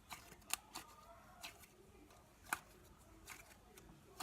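Cloud cream slime being stretched and squished by hand, giving irregular soft clicks and pops, the loudest about two and a half seconds in.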